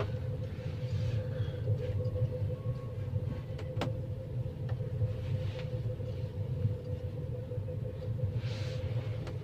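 Banff Gondola cabin riding along its cable: a steady low rumble with a faint steady hum, and a light click about four seconds in.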